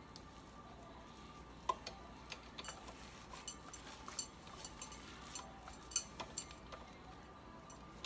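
Gloved hands kneading raw ground beef and egg in a stainless steel bowl, with soft squishing and irregular sharp metallic clicks as the metal bangles on her wrists clink together and against the bowl. The loudest click comes about six seconds in.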